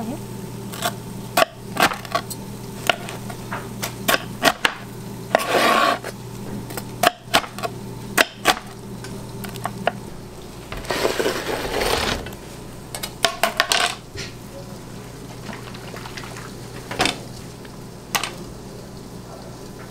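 Kitchen handling clatter: scattered clicks and knocks of utensils and a wooden pizza peel, over a steady hum of kitchen equipment. Two longer scraping sounds come about five seconds in and about eleven seconds in; the second fits the pizza sliding off the peel onto a wire rack.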